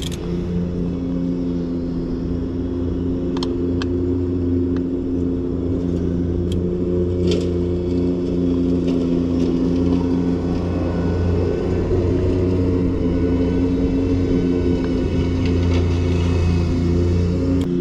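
Lawnmower engine running steadily at a constant speed with a low drone. A few light metallic clicks of a wrench on a bicycle pedal come through in the first half.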